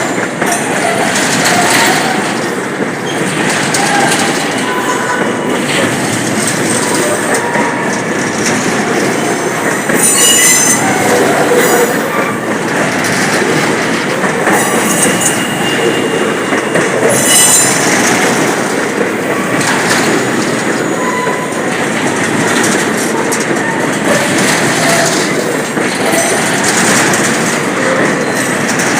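Railroad cars rolling steadily past with a continuous rumble of wheels on rail and some clickety-clack. Short high-pitched wheel squeals come through, the loudest about ten to twelve seconds in and again about seventeen seconds in.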